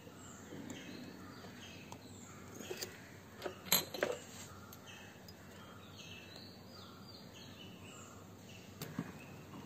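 Faint background of birds chirping, with a few light metal clicks and knocks about three to four seconds in and again near the end as the 17mm box spanner is worked off the scooter's spark plug.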